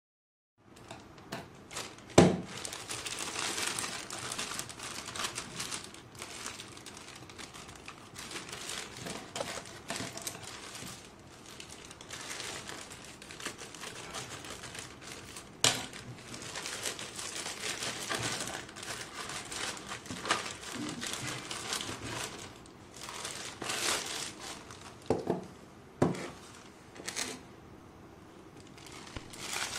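Plastic courier mailer bag crinkling and rustling as it is cut open with scissors and torn apart, with several sharp knocks, the loudest about two seconds in and a cluster near the end.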